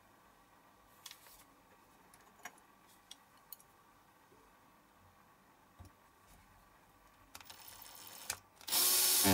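Faint clicks and rustling of small parts being handled, then near the end a cordless drill starts up and runs at a steady pitch.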